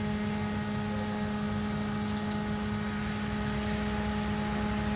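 Steady machinery hum of a powered steel bar shear line standing idle: one constant low tone with higher overtones, the machine not responding to its manual setting. A few faint light ticks about two seconds in.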